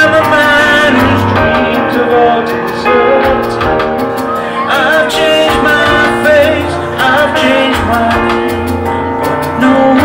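A live rock band playing: a man singing held, wavering notes over electric bass guitar and the rest of the band.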